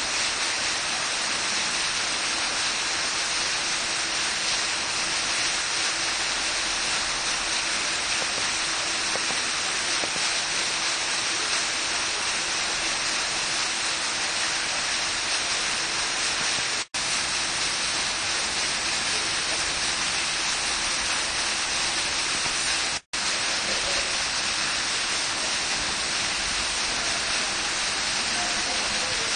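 Several foam-jet fountain nozzles sending frothy water columns splashing steadily back into a pool, a constant rushing hiss. The sound twice cuts out for a split second, once past halfway and again about three quarters through.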